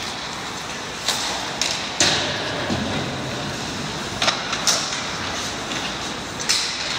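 Ice hockey in play in a rink: a steady hiss with about six sharp clacks and knocks of sticks, puck and boards, the loudest about two seconds in.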